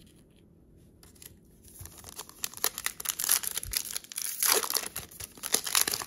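Foil wrapper of a Donruss basketball card pack crinkling and tearing open by hand. It starts about two seconds in and grows louder as the pack is ripped apart.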